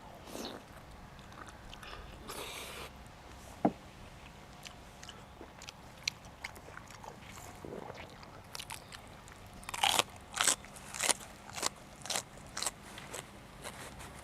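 Close-up chewing and biting with scattered small mouth clicks. From about ten seconds in comes a run of crisp crunches, about two a second, from chewing raw vegetables.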